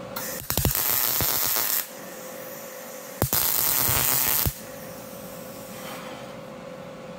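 MIG welder running steel wire under argon/CO2 shielding gas, laying two short welds. The arc crackles and sizzles in two bursts of about a second and a half each, the first starting just after the beginning and the second about three seconds in.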